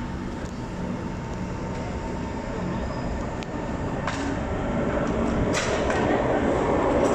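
SMRT North South Line electric metro train running past along the platform, its running noise growing steadily louder, with a low motor hum and a few sharp clicks from the wheels in the second half.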